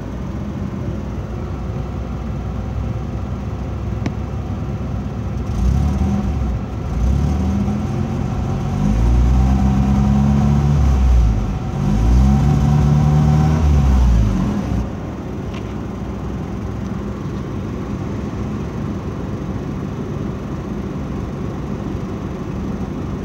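Car engine running on compressed natural gas from a newly installed CNG conversion kit: idling, blipped up and down in revs about three times in the middle, then settling back to idle. It is running rough on the gas, shaking, which the owner puts down to the system still needing time to settle in.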